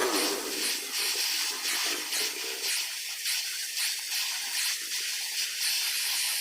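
Electric arc welding on a motorcycle silencer: a steady sizzling hiss with irregular crackles.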